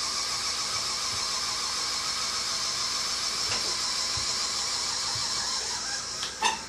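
Battery-powered motors of a pair of homemade animatronic wings running with a steady whine as the wings fold closed, cutting off about six seconds in.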